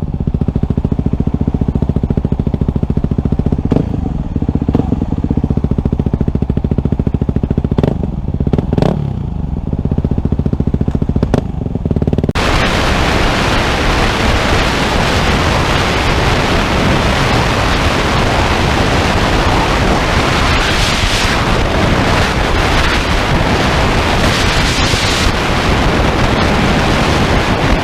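Dirt bike engine running steadily for about twelve seconds. Then it abruptly gives way to a loud, dense rushing noise that drowns out the engine's note.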